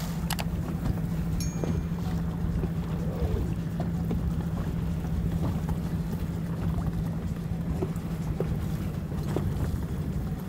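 Boat engine running with a steady low hum.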